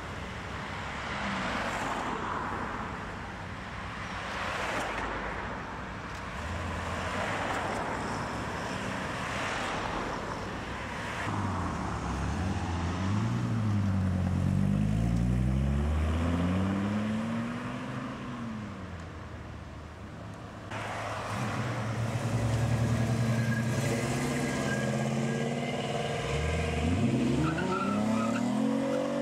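Cars pulling out one after another and accelerating away. In the middle, a Dodge Viper's V10 revs up and down through several gear changes, the loudest part. Near the end another car's engine rises sharply as it accelerates.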